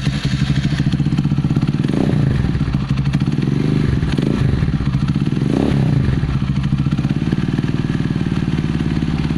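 Gamma 200 motorcycle's single-cylinder engine running through an open Akrapovic carbon fibre muffler, with no DB killer or silencer fitted. It idles with a steady, loud exhaust note, and the engine speed rises and falls a couple of times in the middle. The idle is set a little high.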